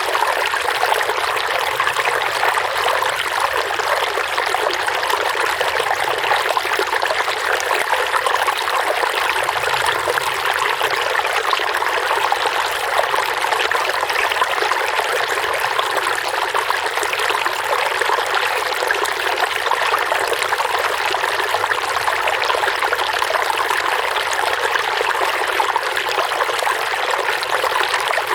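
Running water trickling and splashing steadily, like a small stream.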